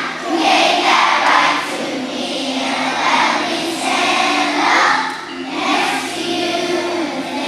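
A children's choir singing, with some notes held for about a second.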